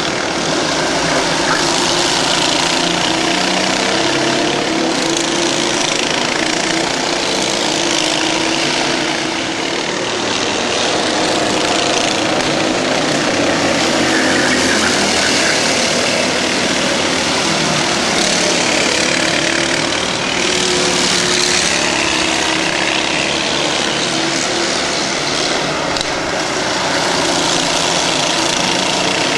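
Several Prokart racing kart engines running hard as the karts pass close by, overlapping, their pitch rising and falling as they accelerate out of corners and back off into them.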